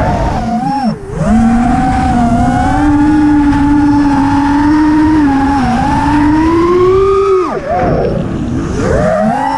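FPV racing quadcopter's brushless motors whining as heard from the onboard camera, the pitch rising and falling with the throttle: a sharp dip about a second in, a slow climb, then a steep drop and recovery near the end. A low rumble of wind buffets the microphone underneath.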